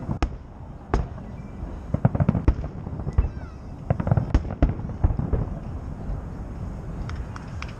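Salute fireworks bursting overhead, an irregular run of sharp bangs that thins out toward the end.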